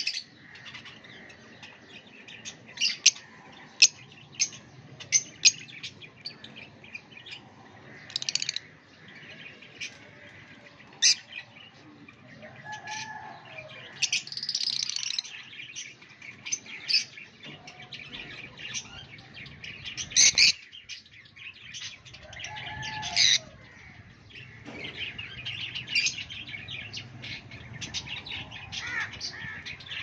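Small caged parrots chirping and calling in irregular bursts of short, sharp, high chirps and screeches, with a few lower curved calls now and then.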